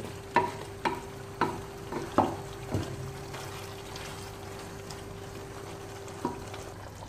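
A wooden spoon stirring chunky chicken stew in a pot, knocking sharply against the pot about five times in the first three seconds and once more near the end. A steady faint hum lies under it and stops shortly before the end.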